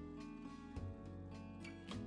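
Background music: plucked acoustic guitar with sustained low notes and a regular beat.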